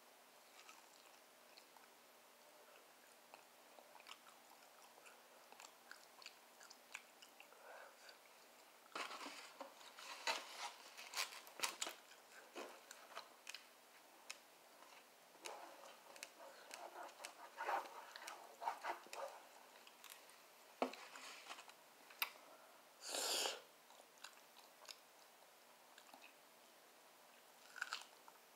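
Close-up eating sounds of fried barbecue ribs: crunchy bites into the crisp coating and wet chewing. The first few seconds are faint, then clusters of crackling bites and chews come from about a third of the way in, with one short louder noise about two-thirds through.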